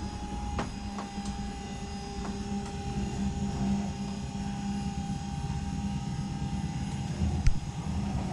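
Stairlift drive motor running steadily as the lift carries its rider along the stair rail, a steady hum on freshly changed batteries. There is a sharp knock near the end.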